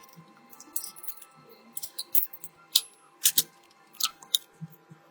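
Small metal tools and parts clicking and tapping against an iPad mini as it is taken apart and repaired: about eight short, sharp clicks at irregular intervals.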